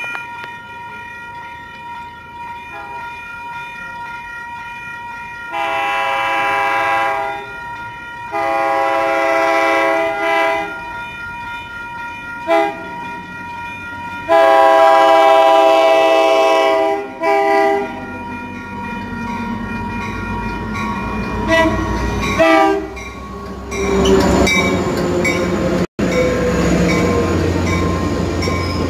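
COASTER commuter train's horn sounding the grade-crossing signal: two long blasts, a short one, then a final long blast, the loudest. Afterwards the train's rumble builds as it rolls into the station, with a falling squeal from the train as it passes.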